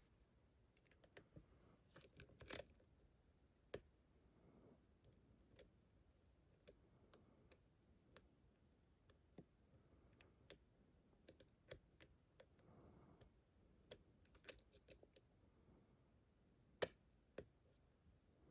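Faint, irregular small metallic clicks and ticks of a GEGE pExtra six-pin lock being picked, the pick and tension wrench working the pins. There is a louder cluster about two and a half seconds in and a sharp click near the end.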